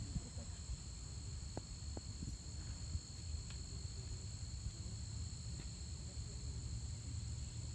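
Steady chorus of insects trilling in several high pitches at once, over a low rumble.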